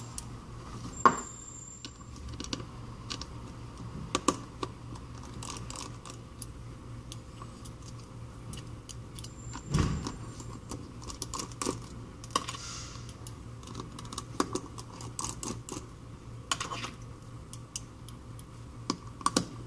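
Scattered small clicks and taps of a precision screwdriver and small screws, as the screws holding down a plate inside an iPhone 5c are taken out, with a somewhat louder knock about halfway through.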